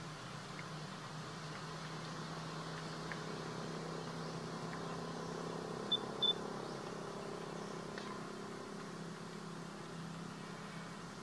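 Steady low hum of a distant engine running, with two short high chirps close together about halfway through.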